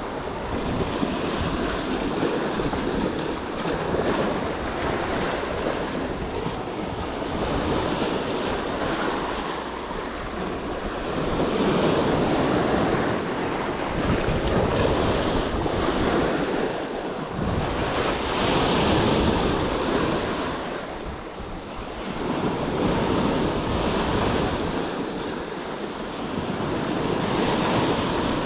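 Small waves breaking and washing in over rocks and sand, the surf swelling and easing every few seconds, with wind buffeting the microphone.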